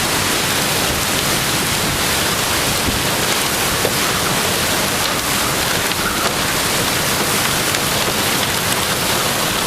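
Heavy, wind-driven rain beating steadily on a car, heard from inside during a severe thunderstorm.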